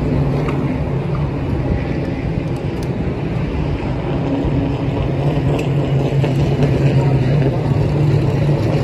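Super truck race engines idling, a steady low drone with no revving, while the race is stopped under a red flag.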